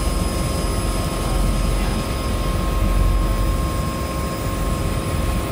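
Floatplane engine and propeller running steadily, heard from inside the cabin as the plane moves on the water on its floats: a constant low drone with a thin steady high tone over it.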